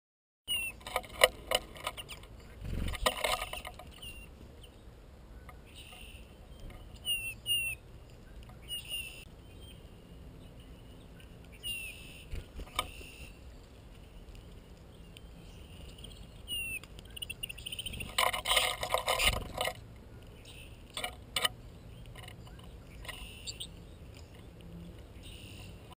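Small songbirds at a seed feeder, American goldfinches among them: short, curving chirps repeat every second or two, with louder bursts of close-up rustling and clicking about three seconds in and again around eighteen seconds in.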